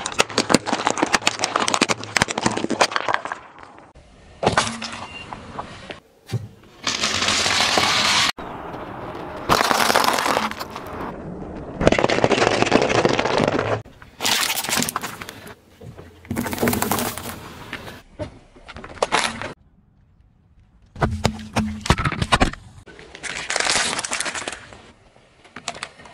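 A string of separate crushing sounds as a car tyre rolls over small objects on asphalt: cracking, crackling and crunching, each lasting one to three seconds with short pauses between.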